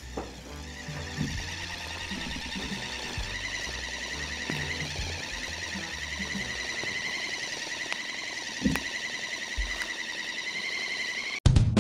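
A motorised plush dog toy running: a steady, warbling buzz over a low rattle that varies as the dog bites and pins it down. A loud thump near the end.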